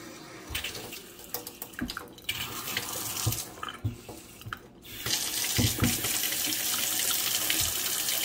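Newly installed single-handle kitchen faucet turned on for its first run, water pouring into a stainless steel sink. The flow starts unevenly in bursts, then settles into a steady, louder stream from about five seconds in.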